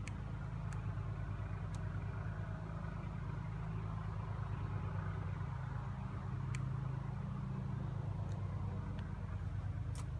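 2016 Corvette Stingray's 6.2-litre LT1 V8 idling steadily, heard from the open engine bay.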